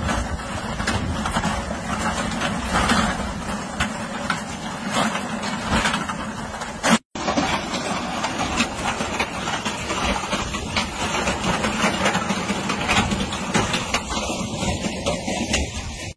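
A machine engine running steadily with clattering, recorded outdoors through a small microphone. The sound cuts out briefly at about seven seconds and picks up again at the same level.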